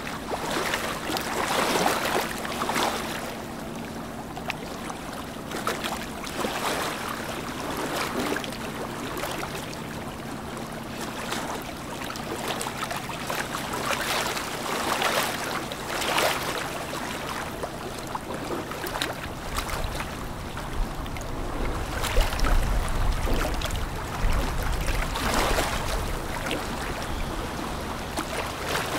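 Ship and tugboat engines droning low and steady, under repeated washes of wind and water noise; a deeper rumble swells for several seconds about two-thirds of the way through.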